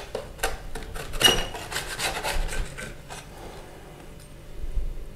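Metal spatula scraping along a stainless steel baking tray as it is pushed under a crumbed chicken breast, with a fork clinking against the tray. There are several rasping scrapes over the first three seconds, then it goes quieter.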